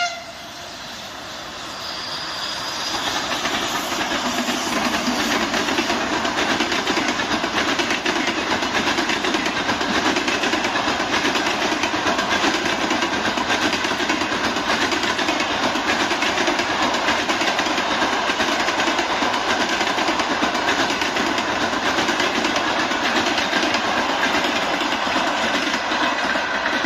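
Passenger train hauled by an EP2K electric locomotive passing at speed. The noise of wheels on rails builds over the first few seconds, then holds as a steady, loud rolling rattle while the coaches go by.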